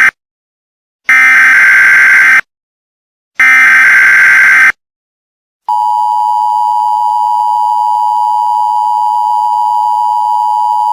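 Emergency Alert System SAME header tones: harsh digital data bursts, the tail of one and then two more, each about a second long and a second apart. About six seconds in, the steady two-tone EAS attention signal begins, the alarm that opens an emergency alert broadcast.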